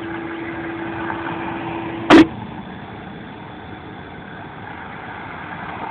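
Ham radio receiver on an open channel with no reply: a steady low tone, cut off about two seconds in by a short, loud crackle, then an even background hiss.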